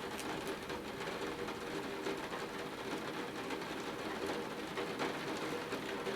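Rain falling steadily, with scattered faint ticks of drops over a faint steady hum.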